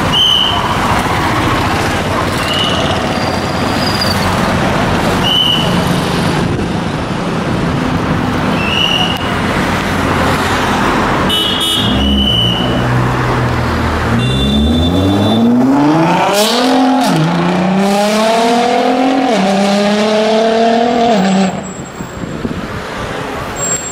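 Nissan GT-R R35's twin-turbo V6 through a Kline Inconel exhaust, first running loud amid short high toots, then accelerating hard: the pitch climbs in three pulls with two upshifts between them before cutting off abruptly near the end.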